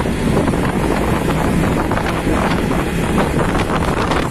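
Wind buffeting the microphone over the steady noise of road traffic.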